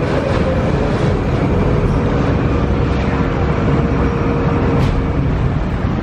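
Vaporetto waterbus's diesel engine running under way with a steady low rumble, a thin steady hum on top that stops about five seconds in.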